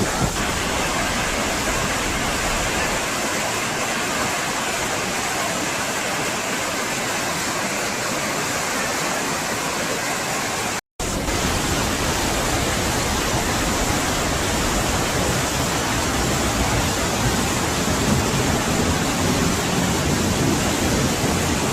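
Steady rushing of torrential floodwater. It cuts out for an instant about halfway through, then comes back with more low rumble.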